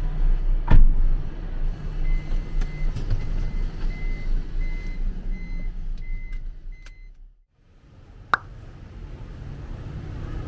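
Vehicle engine idling inside the cabin, a steady low rumble with a thump about a second in. A faint high beep repeats about twice a second, like a vehicle warning chime. The rumble drops away suddenly past the middle, and a single sharp click follows.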